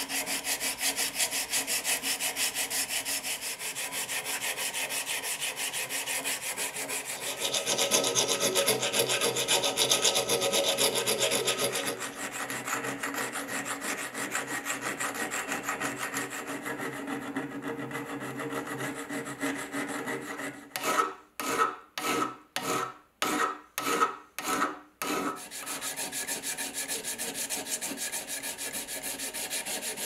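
A hand-held abrasive stick scrubbing rust off a rusty steel knife blade in fast back-and-forth strokes, louder for a few seconds about 8 s in. About 21 s in, it slows to about nine long, separate strokes over four seconds, then goes back to fast scrubbing.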